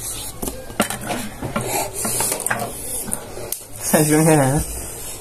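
Spoons clinking and scraping against dishes in a run of sharp, irregular clicks, with a short wavering vocal sound from a person about four seconds in.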